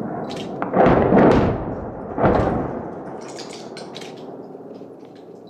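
Two distant bomb explosions about a second and a half apart, each a deep boom that rumbles and fades, the first the louder.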